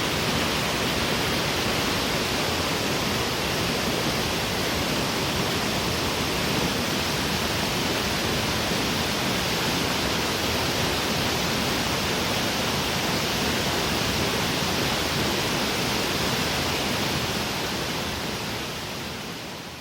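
Waterfall: a steady, dense rush of falling water, fading out near the end.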